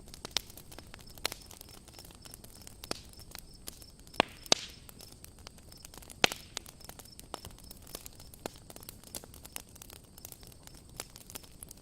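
Wood campfire crackling: irregular sharp pops and snaps over a low hiss, the loudest pops about four and six seconds in.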